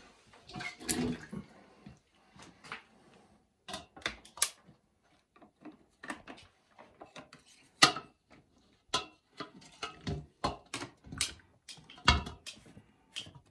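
Plastic water-filter housing being unscrewed and taken off: irregular clunks and knocks of plastic parts, with water sloshing and splashing from the housing.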